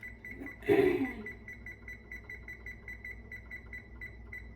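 Oven control panel beeping rapidly, about four short identical beeps a second, as the bake temperature is being set. A brief louder noise breaks in about three-quarters of a second in.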